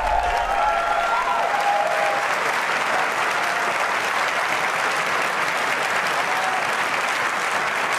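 A large audience applauding steadily, with whistles and shouts over the clapping in the first couple of seconds. A low rumble dies away about a second and a half in.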